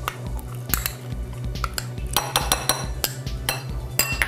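Metal spoon clinking and scraping against glass bowls: a run of sharp clinks, some with a short ring, bunched a couple of seconds in and again near the end.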